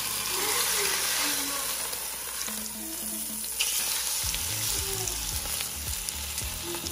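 Pork shoulder sizzling as it sears in hot olive oil in an enamelled casserole pot. It is turned over with metal tongs, with a few sharp clicks and knocks of the tongs against the pot in the second half.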